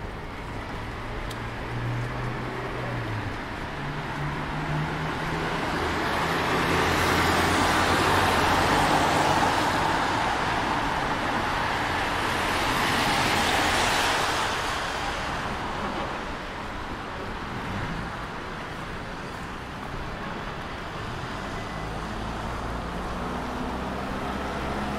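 Cars passing on a wet road, their tyres hissing on the wet asphalt. Two passes swell up and fade away, loudest about eight and thirteen seconds in, over a steady low traffic hum.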